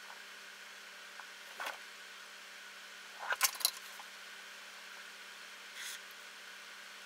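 Small clicks and taps of a transformer, soldering iron and solder reel being handled on a wooden workbench while a loose wire is soldered back onto a terminal: one tap, then a quick cluster of sharper clicks about three and a half seconds in, and a softer one near the end, over a faint steady hiss.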